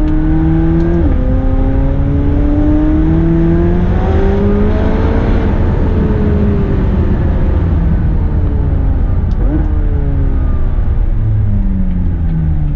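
McLaren 570GT's twin-turbo 3.8-litre V8, breathing through large sport downpipes and the factory sport exhaust, heard from inside the cabin as the car accelerates. The engine pitch climbs, drops sharply at an upshift about a second in, and climbs again until about five seconds in. It then eases off with falling pitch, with a brief jump in pitch about nine and a half seconds in.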